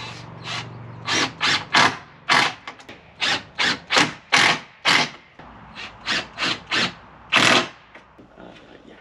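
A power tool fired in a quick series of short bursts into the wooden swing frame, about fifteen in a row with one longer burst near the end.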